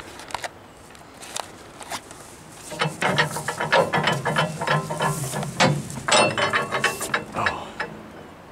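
Dense, rapid crackling and clicking of dry grass and brush being pushed through and trampled close to the microphone. It starts about three seconds in and dies away near the end.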